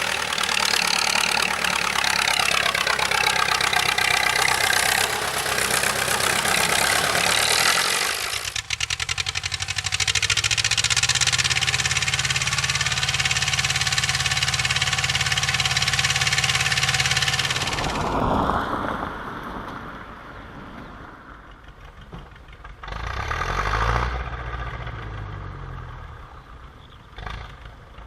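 Ursus C-330 tractor's two-cylinder diesel engine running: loud and harsh for the first eight seconds or so, then a steadier low note, turning quieter about 18 seconds in with a brief swell near 24 seconds.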